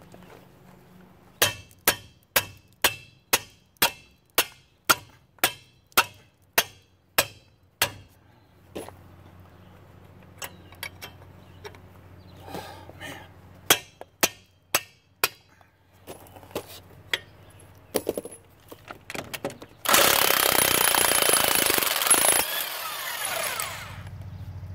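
Hammer blows on the wrench fitted to a seized, rusted truck lug nut: a steady run of sharp metal strikes, about two a second, then slower, scattered strikes. Near the end a loud, harsh noise lasts about two and a half seconds.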